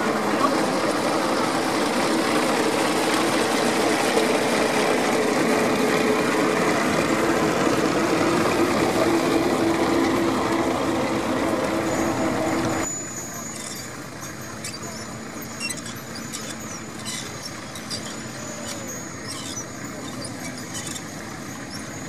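An engine runs steadily close by for about the first half, then cuts off abruptly. After that, quieter open-air sound with scattered light clicks and ticks.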